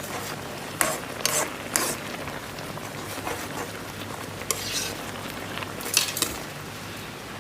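A utensil clinking and scraping against a cooking pot several times, loudest about a second in and again near six seconds, over the steady hiss of water coming to the boil.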